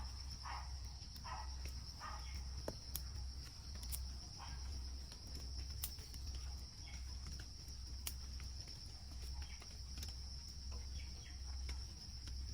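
Steady high-pitched drone of rainforest insects. Over it come a run of short repeated calls, about two a second, fading out in the first two seconds, and a few sharp clicks.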